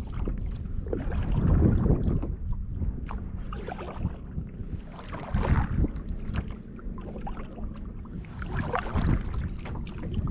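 Kayak paddle dipping and splashing in irregular strokes, with water lapping against the plastic hull of a Lifetime sit-on-top kayak and a low rumble of wind on the microphone.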